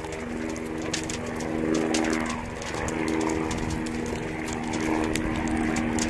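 A steady motor drone made of several held tones, with scattered sharp crackles over it.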